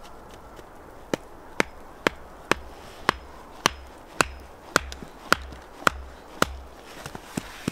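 Small axe chopping wood in a steady run of sharp blows, about two a second, starting about a second in. Near the end come a few lighter, quicker strikes.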